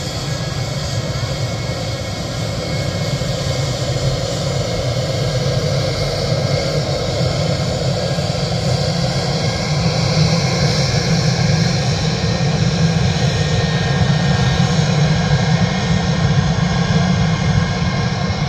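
Piston engine and propeller of a small single-engine light aircraft running as it taxis, a steady drone that grows louder about halfway through.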